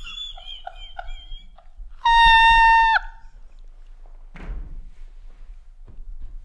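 Two men laughing helplessly, in high-pitched squeaky wheezes and breathy bursts. About two seconds in, a steady electronic beep lasting about a second is the loudest sound.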